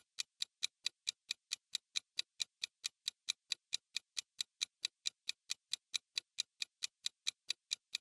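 Clock-style ticking of a countdown timer sound effect, even sharp ticks about three a second, counting down the time allowed to answer a quiz question.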